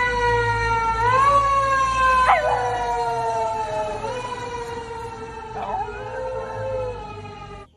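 A passing emergency vehicle's siren sounds one long, slowly falling tone that jumps back up twice, while a Shiba Inu howls along with it, its voice breaking into short upward yelps a couple of times. The sound cuts off abruptly at the end.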